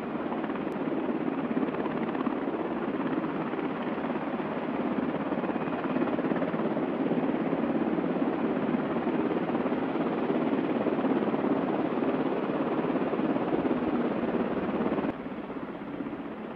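AH-64 Apache helicopters running on the ground, heard from a distance as a steady rushing noise from their twin turboshaft engines. The noise drops sharply about fifteen seconds in.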